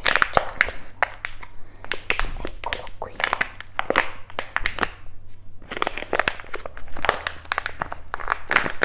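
Close-miked crinkling and crackling of plastic packaging being handled, in dense irregular clusters of sharp crackles.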